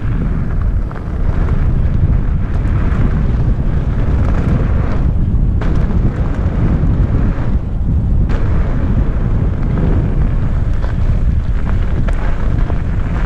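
Wind buffeting the microphone of a helmet-mounted camera at speed, over the continuous rumble of a mountainboard's tyres rolling down a gravel trail.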